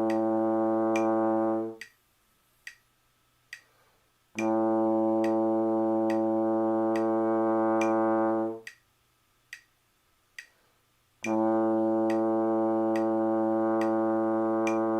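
Trombone playing long held low tones of about four seconds each over a metronome ticking at 70 beats a minute. One note ends about two seconds in, the next sounds from about four to eight and a half seconds, and a third starts about eleven seconds in, with only the metronome clicks in the gaps.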